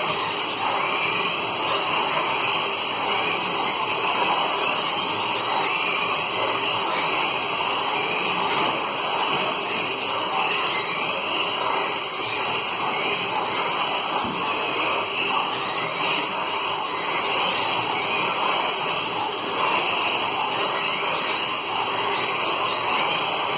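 Several 1/24-scale slot cars lapping a multi-lane track: their small electric motors and gears make a steady whirring rush that rises and dips a little.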